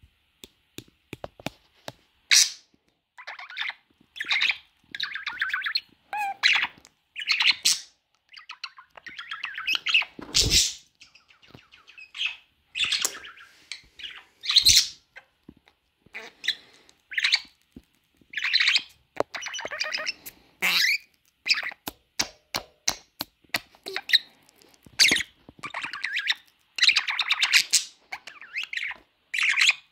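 Budgerigar chatter: a busy run of short warbled chirps and squawks, with a few sharp clicks between them.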